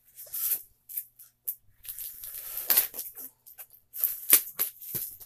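Scissors cutting into the packaging of a styrofoam shipping box as it is handled, a string of short, irregular scrapes and clicks, the sharpest about three and four seconds in.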